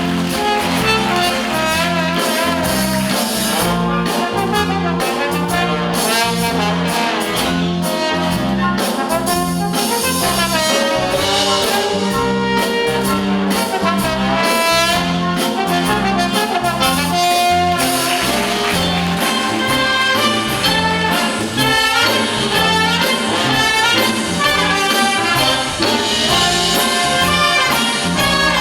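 Wind orchestra playing a jazz blues: trumpets, trombones and saxophones over a steady stepping bass line.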